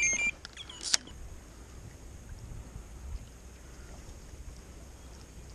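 An electronic bite alarm's tone, signalling a take, cuts off right at the start, and a sharp click follows about a second in. After that only a steady low wind rumble on the microphone and lapping water.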